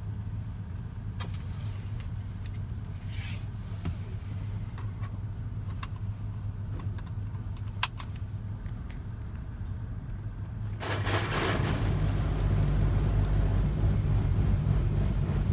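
An AUTEC EV-2 automatic car wash heard from inside the car's cabin. A steady low hum runs under scattered ticks of drips and one sharp click. About two-thirds of the way in, a spray of water starts hitting the car, a loud steady hiss.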